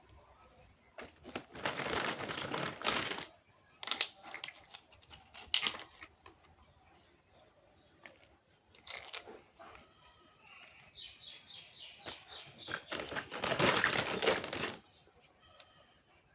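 Plastic packaging crinkling and rustling in two long spells, with a few sharp knocks and clicks in between.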